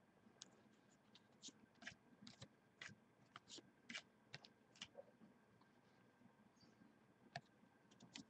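Faint, irregular clicks and taps of trading cards being handled and sorted on a table, about a dozen in the first five seconds and a couple more near the end.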